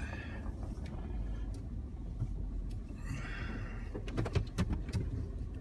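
A vehicle creeping slowly over rough snowy ground, heard from inside the cab: a steady low engine and road rumble with two short squeaky creaks. About four seconds in, a quick run of clicks and scrapes as bare branches brush along the body.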